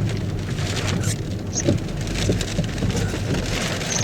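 Rain hitting a car's body and windshield, with scattered drop ticks over the steady low rumble of the vehicle.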